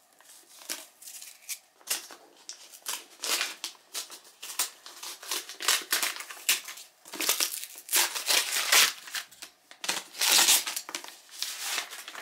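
Brown kraft paper wrapping around a book crinkling and rustling in irregular bursts as it is untied and pulled open, getting louder and busier in the second half.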